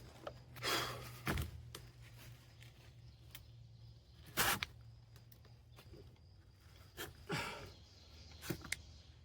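Scattered clicks, taps and scrapes of a hand tool on metal as a worn D-ring seal is worked off a hydraulic travel motor part, the loudest a sharp click about four and a half seconds in, with a couple of longer breathy smears of effort. A low steady hum runs underneath.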